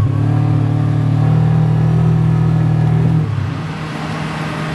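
Utility vehicle's engine running steadily as it drives over the beach sand, heard from the seat. A little past three seconds it gives way to a slightly quieter, steady drone of heavy-equipment engines.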